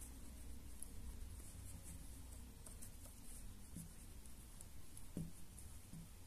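Faint scratching and light ticks of a metal crochet hook pulling cotton yarn through crocheted popcorn stitches, over a low steady hum, with a soft bump about five seconds in.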